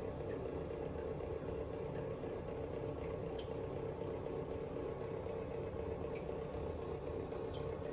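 Steady mechanical hum with a constant mid-pitched tone, with a few faint light ticks over it.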